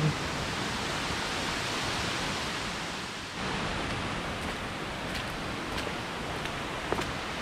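Steady rush of flowing and falling water, with a few faint footstep ticks in the second half.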